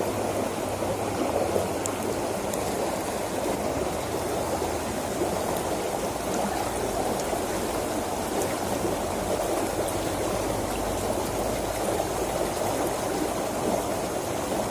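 Steady rush of water flowing fast along a small irrigation ditch.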